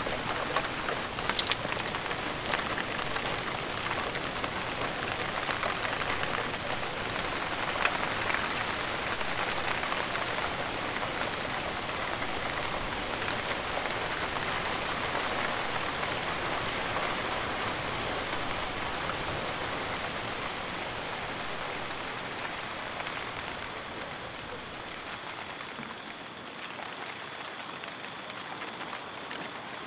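Light rain falling steadily, a continuous soft patter that eases a little near the end. A sharp click about a second and a half in.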